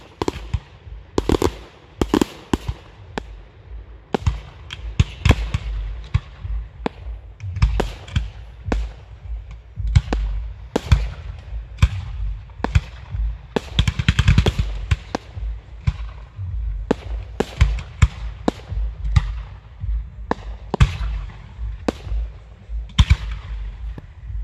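Fireworks display: aerial shells and rising comets bursting in a fast, irregular series of bangs over a low rumble, with a dense flurry of reports about fourteen seconds in.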